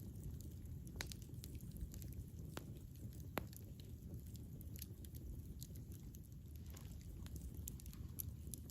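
Campfire burning: a steady low rumble of flames with scattered sharp crackles and pops, the strongest snaps at about one, two and a half and three and a half seconds in.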